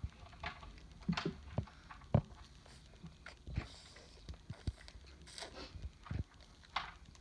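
A toddler eating romaine lettuce: scattered light clicks and taps of a metal fork in a stainless steel bowl, mixed with chewing and crunching of the leaves.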